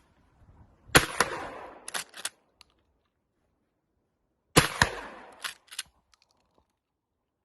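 Winchester 1897 pump-action shotgun fired twice, about three and a half seconds apart. Each shot is followed by a few sharp clacks of the slide being racked.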